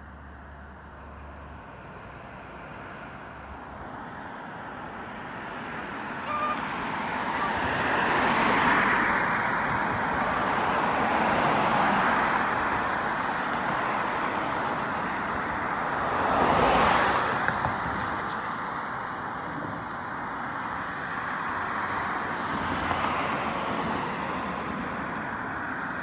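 Road traffic: cars passing one after another, each rising and fading away, with the loudest and closest going by about two-thirds of the way in.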